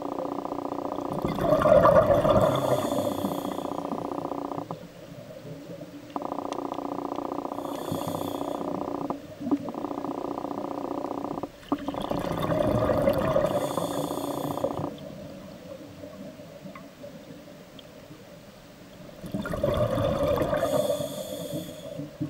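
Scuba regulator exhaust bubbles rushing out three times in a slow breathing rhythm. Between them runs a steady droning hum of several tones that cuts out twice, for a few seconds each time.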